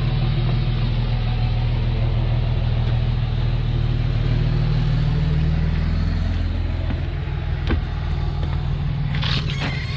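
Vehicle engine running steadily; its note drops lower about six seconds in, with a sharp click shortly after.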